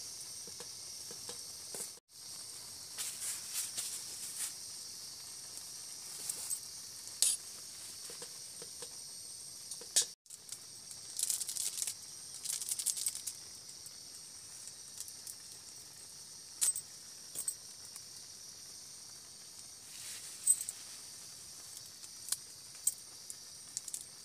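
Steady hiss of a portable stove burner under a steel pot of noodles cooking, with scattered clinks and scrapes of a metal spoon against the pot. The hiss cuts out briefly twice.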